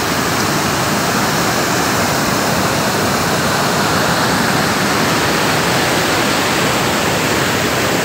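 Close waterfall: a river's whitewater pouring and cascading down broad rock ledges, a steady, full rush of water.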